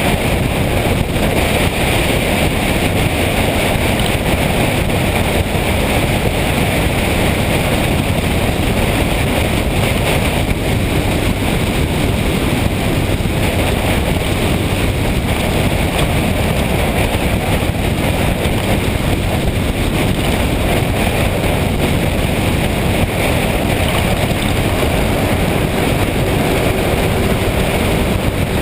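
Motorcycle running at a steady cruise, its engine hum buried under constant wind rush over the microphone.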